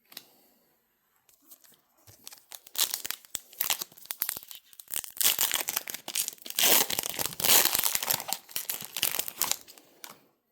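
Pokémon booster pack wrapper being torn open and crinkled by hand. The rustling and tearing starts about two seconds in and is loudest in the second half.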